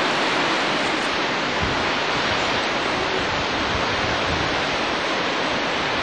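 Steady rushing water, an even full-range roar with no breaks.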